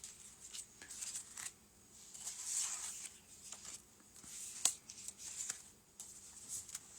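Kit sheets and strips being handled: faint rustling and light clicks, with one sharper click about two-thirds of the way through.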